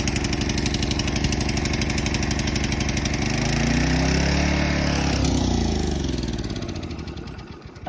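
Honda lawnmower's small four-stroke engine running after a cold start on choke; about three seconds in its note shifts and surges, then it slows and dies near the end, stalling unexpectedly.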